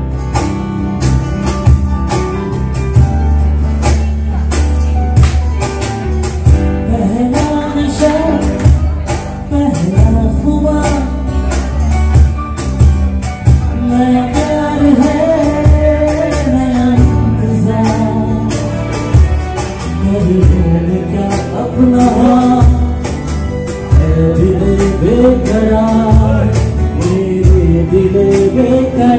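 Live band music: a man singing over instrumental accompaniment with a steady beat and a strong bass.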